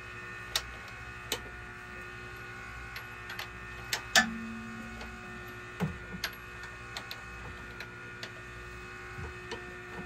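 Irregular metallic clicks and clinks of hand tools working on the rocker-arm gear of a Detroit Diesel 8V92 cylinder head, over a steady hum. The loudest clank comes about four seconds in.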